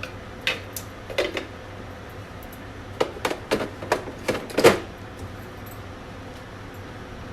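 Light clinks and knocks of kitchen utensils against cookware: a few in the first second and a half, then a quick run of about seven between three and five seconds in, over a low steady hum.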